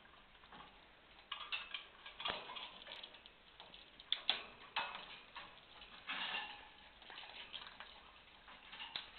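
Wooden blocks of a hanging parrot toy clacking and knocking irregularly as an African grey parrot bites and pulls at them with its beak. The taps start about a second in and come in scattered bunches.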